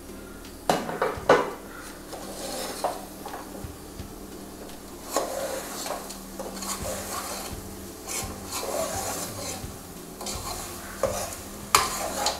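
Metal spoon stirring chicken pieces and masala in an aluminium pressure cooker, scraping around the pot, with a few sharp metallic clinks about a second in and near the end.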